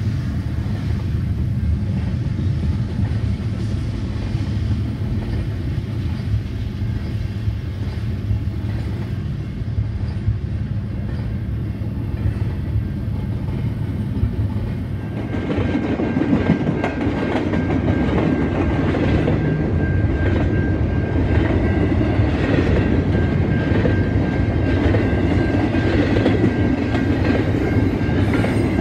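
Double-stack intermodal freight cars rolling past over a grade crossing: a steady rumble with wheels clacking over rail joints. For the first half it is muffled through the car's closed cabin, then about halfway through it turns louder and clearer.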